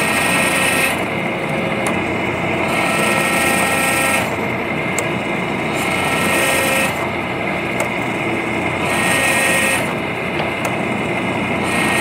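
Hydraulic forging press running while it squeezes a hot steel billet, its mechanical drone changing character every second or two as the ram presses and lets off.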